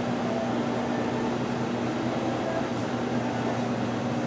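Steady mechanical hum of room equipment, with a constant low drone and a hiss above it.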